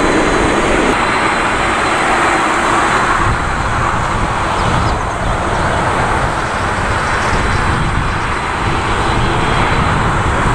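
Boeing 787-8 jet engines running loudly and steadily as the airliner rolls out along the runway after touchdown.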